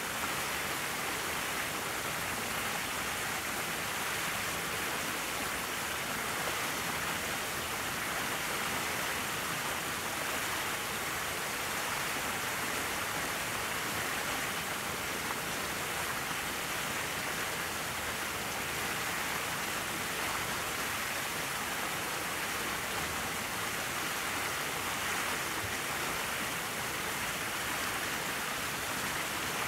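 Steady rushing of water, an even hiss that holds without breaks or changes.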